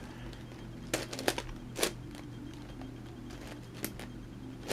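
Scattered plastic clicks of a big 11x11x11 Rubik's cube being turned and handled, a cluster of clicks about a second in and single ones later, over a steady low hum.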